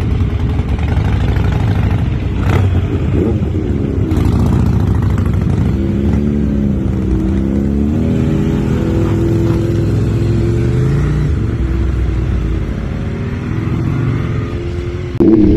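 Motorcycle with an Austin Racing aftermarket exhaust riding, the engine note rising and falling in pitch as it accelerates and shifts, over steady wind rush. The sound jumps louder near the end.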